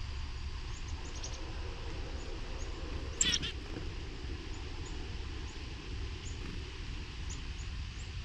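Small wild songbirds chirping: short, high-pitched calls scattered throughout, with one louder burst of calls about three seconds in, over a steady low rumble.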